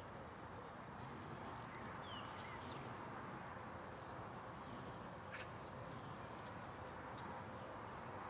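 Faint outdoor ambience near a forest: a steady low background noise with scattered short bird chirps and calls, and one sharper chirp about five seconds in.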